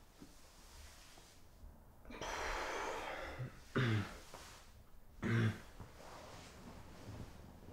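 A man lets out a long, heavy breath, then gives two short, rough, throaty coughs a little over a second apart.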